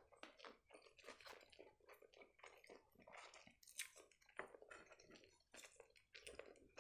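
Quiet, close-up chewing of a mouthful of sushi roll (rice, fish, cucumber and cream cheese), with a steady run of small, irregular wet clicks and squelches.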